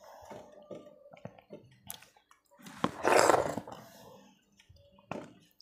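A loud wet slurp about three seconds in, as runny dal is sucked off the fingers. Around it are quieter scrapes and small smacks of fingers wiping a steel plate, and mouth clicks.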